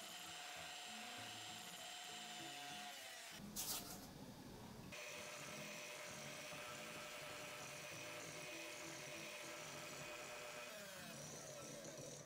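Electric hand mixer running steadily, its beaters whipping egg whites and sugar into meringue in a glass bowl. A short knock comes about three and a half seconds in.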